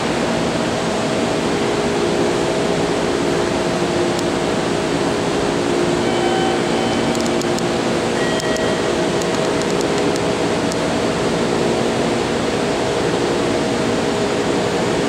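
Steady hum and whir of a stopped Meitetsu 4000-series electric train's air conditioning and auxiliary equipment, with several steady low tones under an even hiss, in the echoing underground station.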